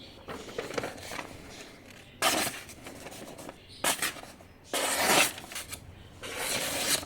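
Four or five separate scraping strokes, each under a second long and starting sharply, with fainter rubbing in between. The loudest strokes come about two and five seconds in.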